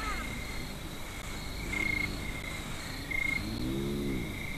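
Spotted hyena giving a low call that rises and then falls, about four seconds in, the loudest sound here. Under it an insect chirps short, even high notes at intervals of about a second.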